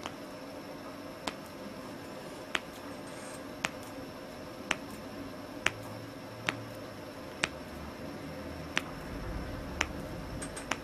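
Middle finger joints cracking: about ten sharp single pops, roughly one a second, as the same finger is cracked over and over.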